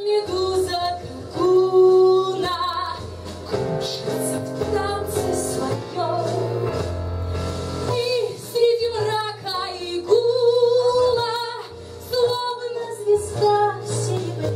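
A woman singing into a handheld microphone, with held and gliding notes, over a musical backing with a steady bass line.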